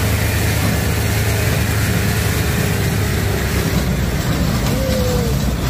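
Diesel engine of a heavily loaded Mitsubishi light dump truck, running in a steady low rumble. The truck is so overloaded that its front wheels are lifted off the road.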